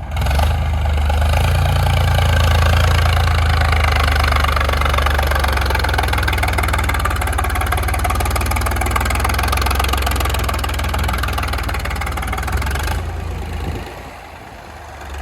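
A machine's motor running steadily with a deep hum and a wash of noise, starting abruptly and winding down about thirteen seconds in.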